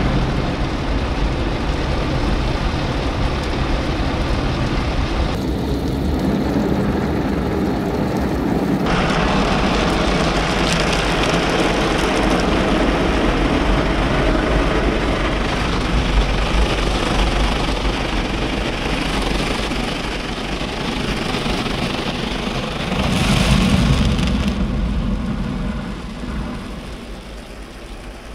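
Automatic gantry car wash working over the car, heard from inside the cabin: water spraying and rotating brushes sweeping across the windscreen and body, a dense steady wash noise with a low rumble underneath. It swells briefly about three-quarters of the way through, then eases off near the end.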